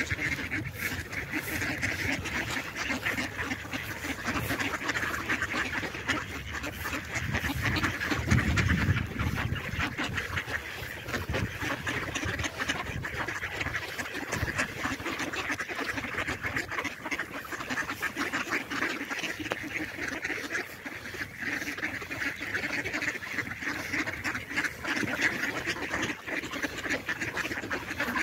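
A large flock of mallards quacking and chattering continuously, many calls overlapping, with a brief low rumble about eight seconds in.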